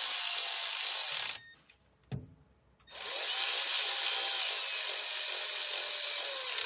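Cordless electric ratchet spinning down oil pump mounting bolts in two runs. The first run stops about a second and a half in. After a short pause with a single knock, the second run lasts about four seconds, its motor whine rising and falling slightly.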